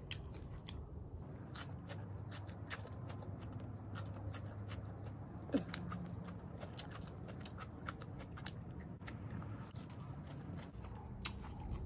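Close-up eating sounds: irregular soft clicks and squishes of fingers mixing food in a bowl, with chewing, and a bite near the end.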